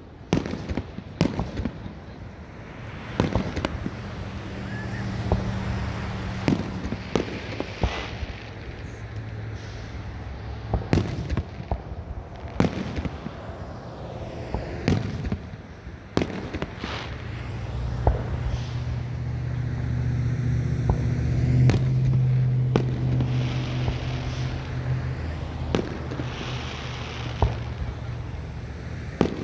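Fireworks show: aerial shells bursting in irregular sharp bangs, several every few seconds. A low steady drone runs beneath, swelling and fading about two-thirds of the way through.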